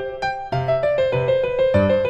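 Gentle piano background music: a melody of single notes struck one after another, each fading after it is played.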